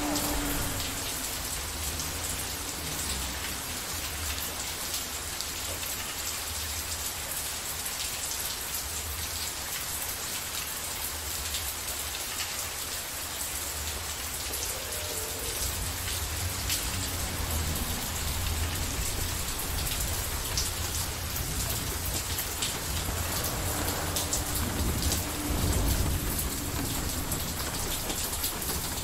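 Steady rain falling, with a low rumble of distant thunder underneath that builds and swells near the end.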